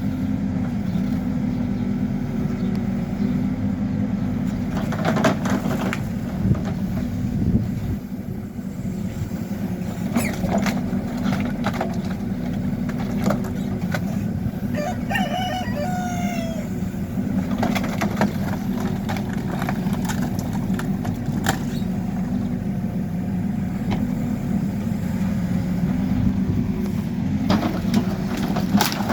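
Hidromek backhoe loader's diesel engine running steadily, with occasional sharp knocks. A rooster crows about halfway through.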